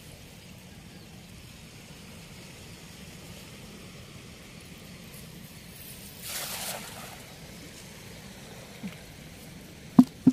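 Steady rush of river water, with a splash lasting under a second about six seconds in and two sharp, loud knocks near the end.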